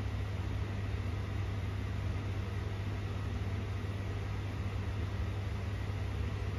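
A steady low mechanical hum with an even hiss, unchanging throughout, like a running fan or similar machine.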